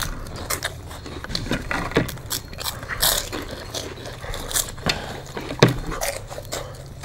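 People eating from plates with their mouths alone, no hands: scattered crunching, chewing and biting noises, with short clicks of mouths and food against the plates and a louder click near the end.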